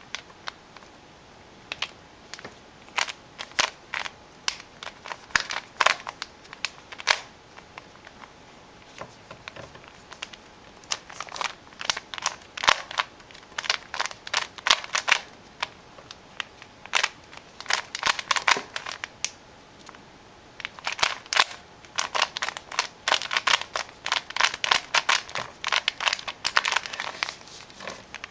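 Rubik's Cube being turned by hand: quick plastic clicks and clacks as the faces snap round, in bursts with short pauses, sparse at first and coming in fast runs from about halfway through.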